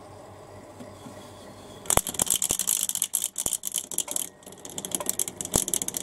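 Washing machine drain pump's small permanent-magnet synchronous motor switching on about two seconds in and running dry with its impeller exposed. It makes a fast, steady rattling clatter with hiss, noisy because it is running without its housing and water.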